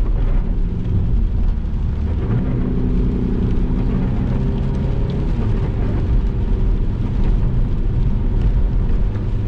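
Saab 9-5 Aero's turbocharged four-cylinder engine accelerating with a straight-piped exhaust, its center muffler cut out, heard from inside the car as a loud low drone. The engine pitch rises and falls a few times as it pulls.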